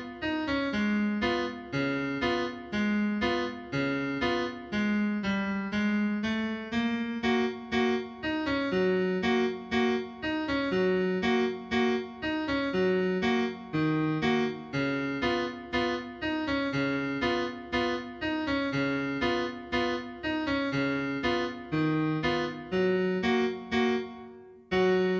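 Background music: a piano-like keyboard plays a gentle, steady melody of notes that each strike and fade, with a brief break near the end.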